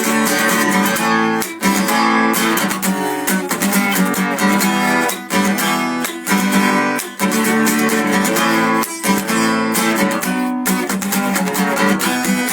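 Acoustic guitar strumming chords in a steady rhythm: an instrumental passage of a song with no singing.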